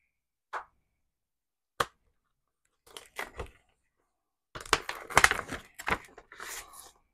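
Paper inner sleeve of a vinyl LP rustling and crinkling as it is slid out of the album jacket: a few short scrapes, then a denser stretch of rustling from about four and a half seconds in. A single sharp click just under two seconds in.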